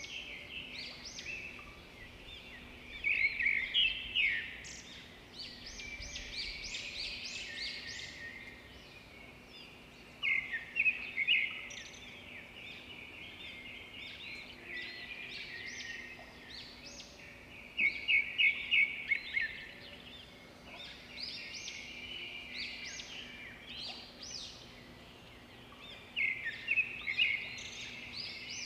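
Birds chirping, with loud bouts of rapid calls about every seven or eight seconds and softer chirping in between.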